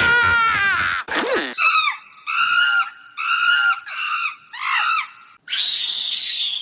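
Cartoonish animal-like squealing and screaming: a falling wail, a quick downward swoop, then about five short high-pitched squeals that each drop in pitch at the end, and a harsh screech lasting about a second near the end.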